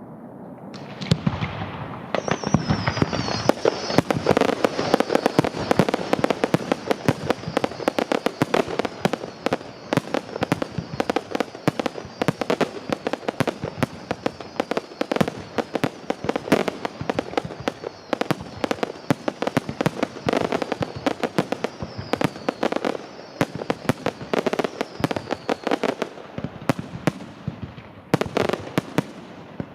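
Fireworks display: a dense, rapid barrage of bangs and crackles starting about a second in, with a high hiss running beneath it until near the end.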